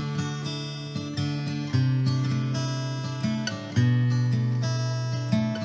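Background music on acoustic guitar: held, strummed chords, with a new stroke about every two seconds.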